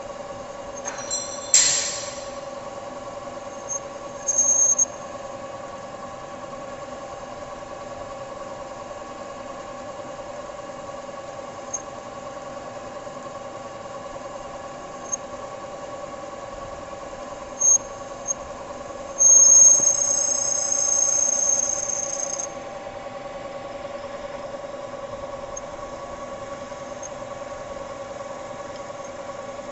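Metal lathe running with a steady hum while a single-point tool turns a taper on a spinning center punch blank. The cut gives a few short high-pitched squeals, the longest lasting about three seconds about two-thirds of the way through.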